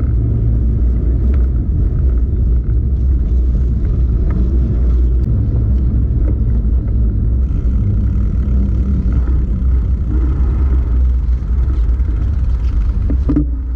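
Wind rumbling over the microphone of a bike-mounted action camera while a mountain bike rides along, loud and steady, with occasional faint clicks and knocks from the bike over the road surface.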